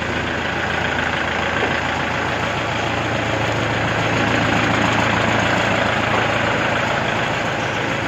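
Kubota L4508 direct-injection diesel tractor engine idling steadily.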